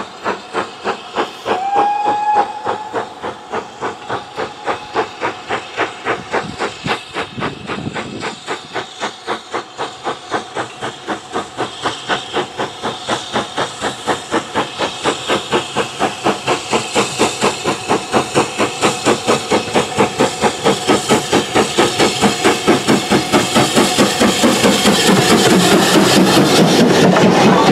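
BR Standard Class 5 steam locomotive working a goods train, its exhaust beats chuffing at about two to two and a half a second and growing louder as it approaches, with a short whistle about two seconds in. Near the end it passes close, with a loud hiss of steam around its cylinders.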